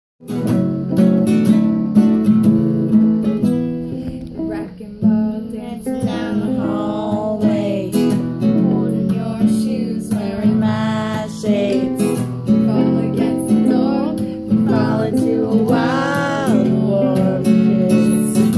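Ukulele strummed in a steady rhythm of chords, with a voice singing along in places.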